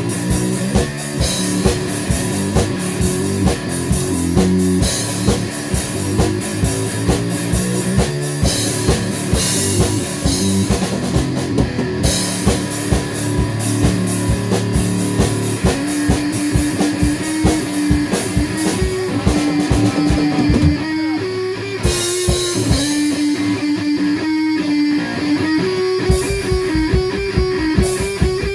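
Heavy rock music with a driving drum kit and distorted guitars. About three quarters of the way through, the bass and kick drum drop out for about five seconds, leaving guitar, and then the full band comes back in near the end.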